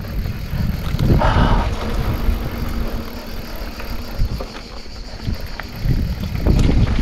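Hardtail mountain bike descending a dirt singletrack: wind rumble on the camera microphone, tyres rolling over dirt and the bike rattling over bumps, louder about a second in and again near the end.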